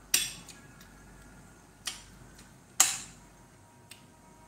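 Metal fork and spoon clinking against a plate while eating: three sharp clinks with a faint ring, the first just after the start, a softer one just under two seconds in, and a loud one near three seconds in.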